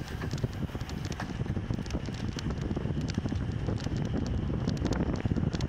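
Wind noise on the microphone of a camera riding along on a road bicycle, over a steady low road rumble, with many small irregular clicks and rattles.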